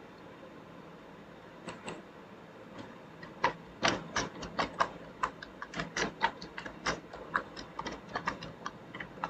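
Computer keyboard keystrokes typing a short phrase: a few isolated key clicks in the first three seconds, then quick, uneven typing from about three and a half seconds in.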